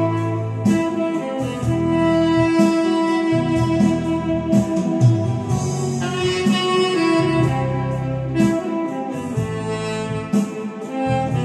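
Tenor saxophone playing a slow melody of long held notes over a recorded backing accompaniment with a regular beat.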